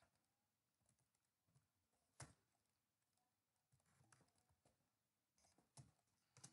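Near silence with a few faint, scattered computer keyboard clicks.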